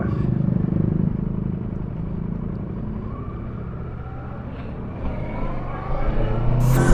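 A road vehicle running while driving, with a steady low engine and road rumble. Music comes in loudly at the very end.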